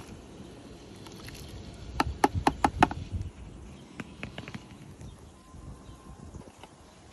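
A serving spoon stirring a seafood boil in a pot, with a quick run of about five sharp knocks of the spoon against the pot about two seconds in, then a few lighter clicks as the spoon is lifted out and set down.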